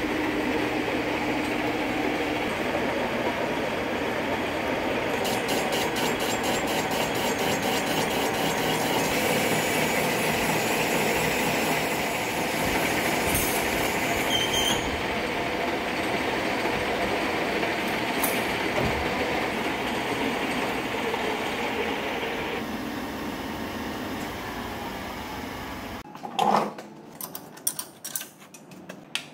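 Big centre lathe running with a large steel tube turning in its chuck: a steady mechanical drone, with a fine regular ticking for a few seconds. Near the end it gives way to a few sharp metallic clanks of a spanner on the steady rest and tool post.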